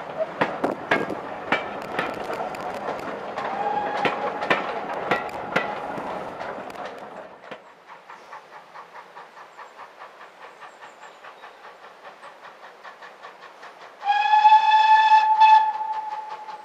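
Passenger coaches of a heritage steam train passing close, wheels clicking over the rail joints. After that comes a quieter, even beat from an approaching steam locomotive. Near the end the locomotive's steam whistle sounds loud and steady for about a second and a half.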